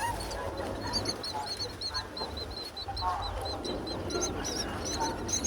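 Myna chicks begging in the nest: a fast, steady run of short, high, repeated cheeps, about four or five a second, growing louder and more insistent toward the end, with a few harsher, lower calls from a bird in the middle.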